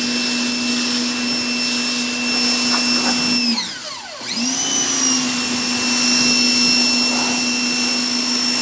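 Electric pressure washer running with a steady motor whine over the hiss of the spray. About three and a half seconds in the motor winds down to a stop, then starts again half a second later, its pitch rising back up to speed.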